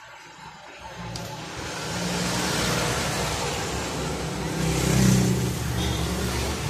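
Motor vehicle engine running close by, growing louder over the first two seconds and peaking about five seconds in, with a broad hiss over a low rumble.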